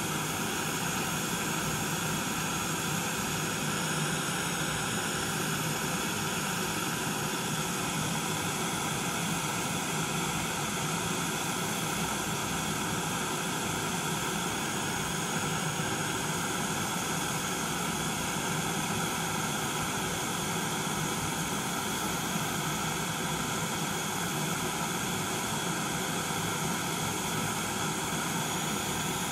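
Homemade gas brazing torch burning with a steady, unbroken rush of flame and gas as it heats a joint for brazing.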